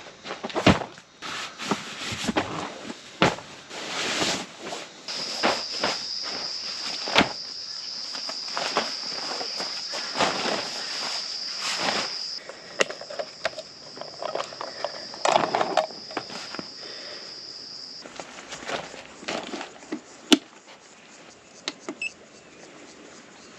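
An insect, cricket- or cicada-like, sings a steady high drone that starts about five seconds in and stops near the end. Under it are scattered clicks, knocks and rustles of things being handled.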